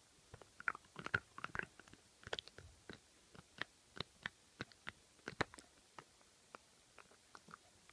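Small dog chewing and gnawing on a bone-shaped chew toy close to the microphone: irregular sharp clicks and crunches of teeth on the toy, a few a second.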